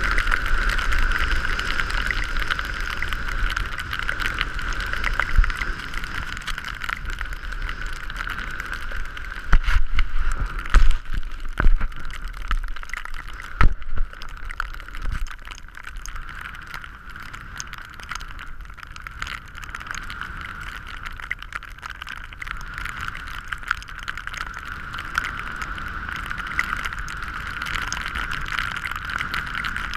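Wind rushing over the microphone of a skier's camera during a run in a snow shower, a steady hiss with low rumble beneath. A cluster of loud knocks and bumps comes from about ten to fourteen seconds in, as the camera is knocked or covered.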